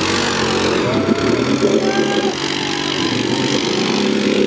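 ATV engines running and revving, more than one at a time, their pitch shifting up and down.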